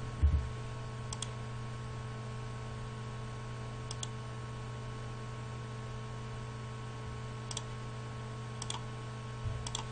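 About five computer-mouse clicks, each a quick press-and-release pair, spread over several seconds above a steady low electrical hum. One dull low thump sounds just after the start.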